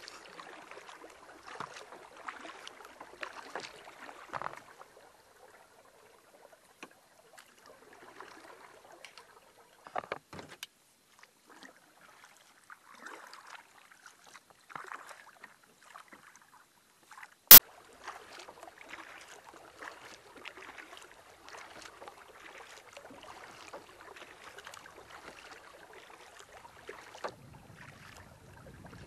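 Canoe paddling: water swishing and dripping from paddle strokes, which come and go with short pauses. A single sharp click a little past halfway is the loudest sound.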